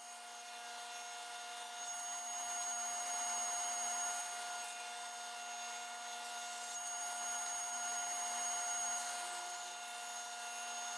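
Table saw running and ripping walnut boards into strips: a steady motor hum under the hiss of the blade cutting, a little louder through the middle while the boards are fed through.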